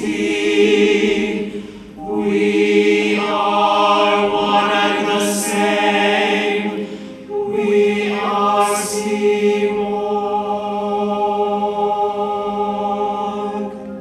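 A choir singing long held chords in slow phrases, with two short breaks between them.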